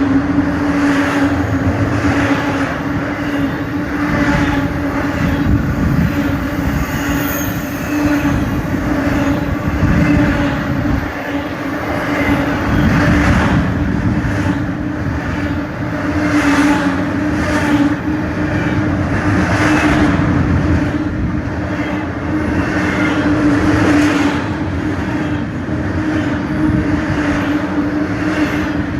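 Cars of a Union Pacific intermodal freight train rolling past at speed: a loud, steady rumble of steel wheels on rail with a constant hum and recurring clacks of wheels over rail joints.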